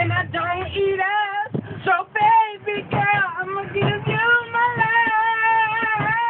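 Girls singing aloud inside a school bus: short sung phrases, then one long held high note from about the middle on.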